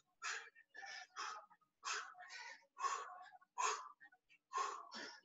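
Quick, heavy breathing from exertion: short, sharp breaths nearly two a second, as from someone working hard through a jumping jack press set.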